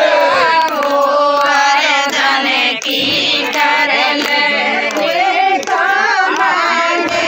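High voices singing a devotional song, continuous and melodic.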